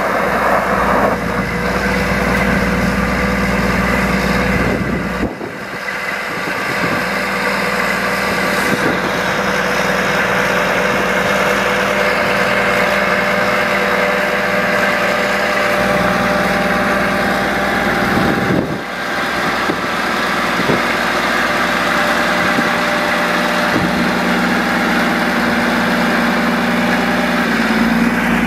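1990 Champion 740A motor grader's Cummins L10 inline-six diesel engine running steadily as the grader moves, its sound dipping briefly twice, about five seconds in and again near nineteen seconds.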